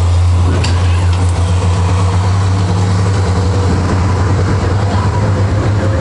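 Inside a moving city bus: the engine drones steadily with a strong low hum under road and cabin noise, with a couple of light clicks about a second in.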